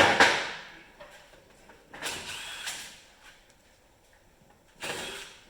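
A handheld power tool run in three short bursts, each under a second, on the flywheel puller bolt as the flywheel of a Polaris 680 snowmobile engine is drawn off.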